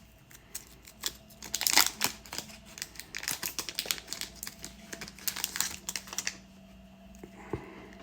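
Foil card-pack wrapper crinkling in the hands, a dense run of crackles loudest about two seconds in that dies away after about six seconds.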